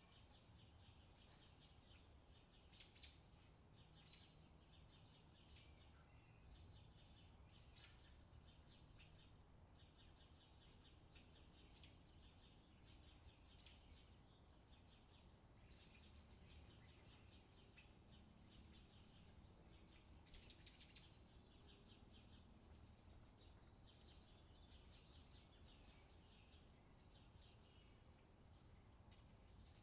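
Faint, sparse bird chirps, short high calls repeating every second or few, with a brief flurry of them about two-thirds of the way through, over a very quiet outdoor background.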